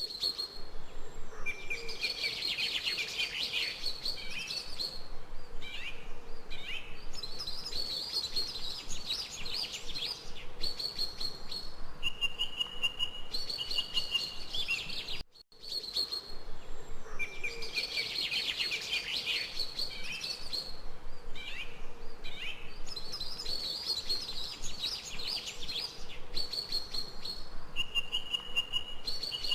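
Birdsong: rapid trilled chirping phrases and short steady whistled notes from small birds. The same stretch of song plays twice, about fifteen seconds each, with a brief break between.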